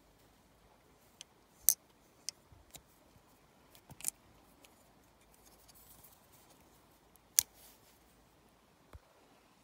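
Stainless steel multi-tool being folded by hand: sharp metallic clicks as its tools and handles snap into place, several spread out, the two loudest about one and a half seconds in and after seven seconds.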